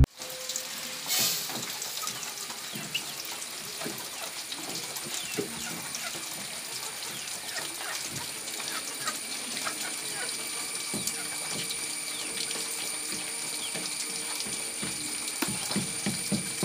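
Chickens moving about on a wooden shelf: scattered small clicks and scratches with short chirps, over a steady high-pitched whine, with a louder rustle about a second in.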